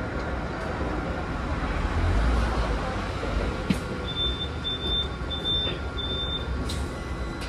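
Hong Kong double-decker tram #54, a VVVF-drive car, running with a steady low rumble, heard on board. About halfway through, four short, evenly spaced high electronic beeps sound over roughly two seconds.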